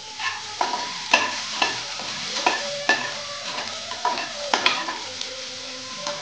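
Chopped onions sizzling as they fry in oil in an aluminium pot. A slotted spoon stirs them, clicking and scraping against the pot about twice a second.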